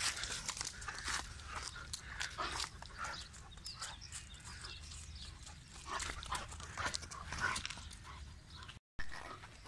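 A dog making short, scattered noises, with a brief gap near the end.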